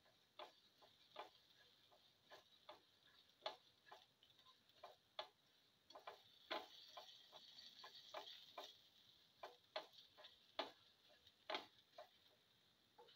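Plastic spatula stirring and scraping cumin and fennel seeds as they sauté in a little oil in a pan, making soft, irregular clicks and taps, with a faint sizzle partway through.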